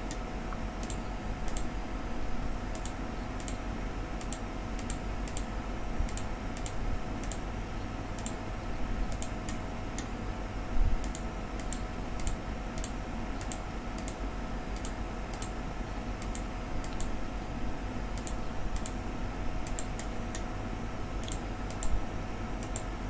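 Computer mouse clicking, short sharp clicks about two or three a second in an uneven rhythm, as points of a curve are placed one by one, over a steady faint electrical hum. A couple of louder knocks stand out near the middle and near the end.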